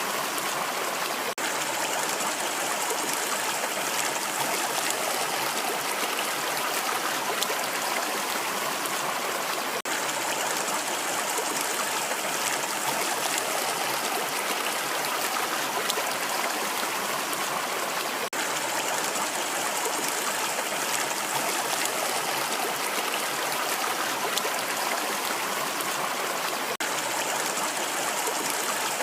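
Rushing water, a steady, even splashing rush with no let-up. A brief tiny dropout recurs about every eight or nine seconds.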